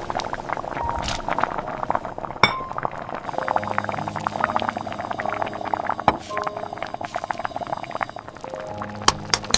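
A dense, irregular patter of small light clinks and ticks, like drops or small glass and metal taps, over a few soft held music notes.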